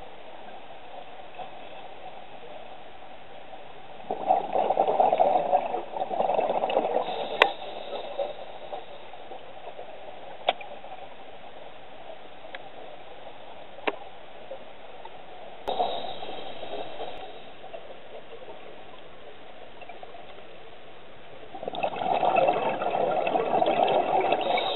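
Scuba diver's regulator heard underwater: three bursts of bubbling exhalation, a few seconds each, about four, sixteen and twenty-two seconds in, over a steady hiss, with a few sharp single clicks between them.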